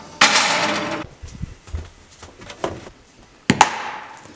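Toaster oven being handled: its rack or tray slides out with a short scraping noise that stops abruptly, then a few light clicks, then a sharp metal clack about three and a half seconds in, such as the door snapping shut.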